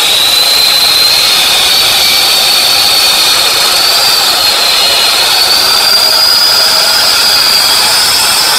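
Y-IKING wall chaser (wall grooving machine) running under load with its five diamond blades cutting a groove into a plaster and brick wall. The blades grind through the masonry under a loud, steady high whine that slowly climbs in pitch, with a small wobble about four seconds in.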